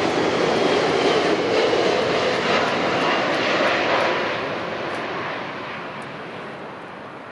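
Jet airliner on final approach to land, its engines making a loud rushing noise with a steady whine that fades away from about four seconds in as the aircraft passes.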